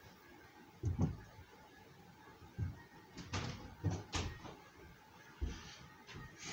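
A handful of dull knocks and bumps at uneven intervals, about six in all, the loudest about a second in.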